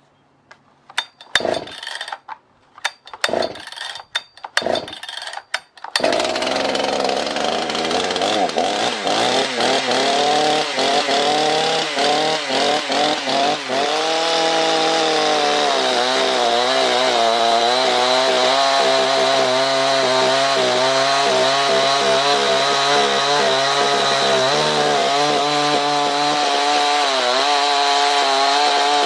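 Husqvarna 281 two-stroke chainsaw being pull-started: a few short pulls, then the engine catches about six seconds in. It revs up and down for several seconds, then settles into a steady run, on a test run after a rebuild.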